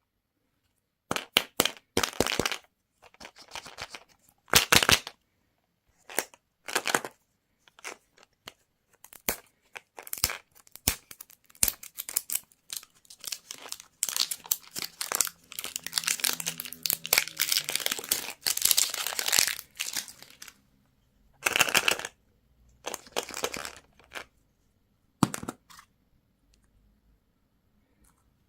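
Candy and toy packaging wrappers being crinkled and torn open by hand, in short irregular bursts with a longer stretch of steady crinkling in the middle.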